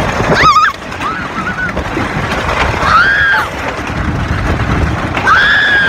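American Eagle wooden roller coaster in motion: loud wind noise and track rumble on a phone microphone, with riders screaming several times, at about half a second in, about three seconds in and near the end.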